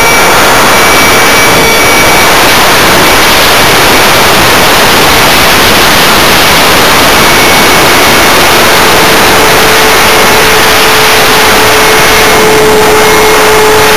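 Multiplex Twister RC plane's motor and propeller running at a steady high-pitched whine, heard from a camera on board the plane. A loud rush of wind noise covers it.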